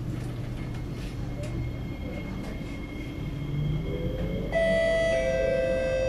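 SMRT C751B train pulling away from a station. Its traction motors give a faint rising whine from about three seconds in, then switch abruptly, about a second and a half later, to a louder chord of several steady tones as it gathers speed.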